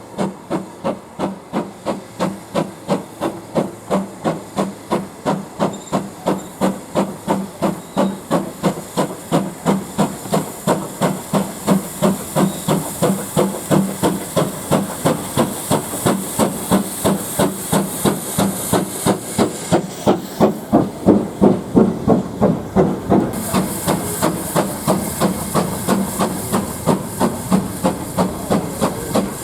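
Steam locomotive working under steam, its exhaust chuffing in an even rhythm of about three beats a second and growing louder. A high steam hiss joins in about halfway through and breaks off briefly near two-thirds of the way.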